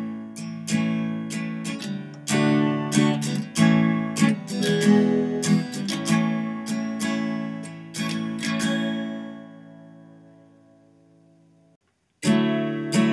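Background music of strummed acoustic guitar. About nine seconds in, a last chord rings out and fades to silence, and the strumming starts again shortly before the end.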